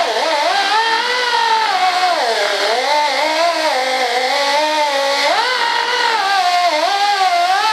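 Handheld power tool spinning a cone-shaped buffing wheel over a mold with polishing compound. A steady motor whine whose pitch keeps sliding up and down as the wheel is rolled around the surface.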